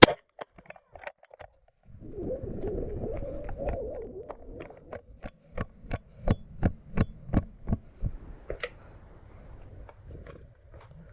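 Airsoft pistol fired rapidly, about a dozen sharp cracks at about three a second, after a single sharp snap and some rustling of movement; the run ends with the pistol emptied.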